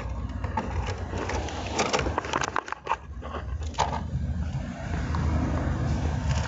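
Rustling, scraping and clicking of items being handled and moved inside a car's cabin during a search, over a low rumble. A cluster of sharp clicks and scrapes comes between about two and four seconds in.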